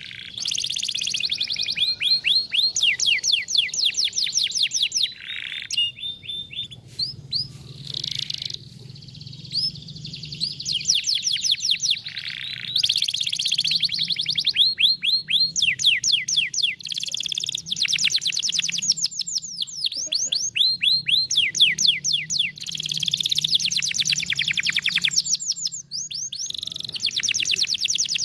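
Canary singing its 'vara de pescar' (fishing-rod) song: fast trills of high, downward-sweeping notes repeated many times a second, in phrases a few seconds long with brief breaks between them.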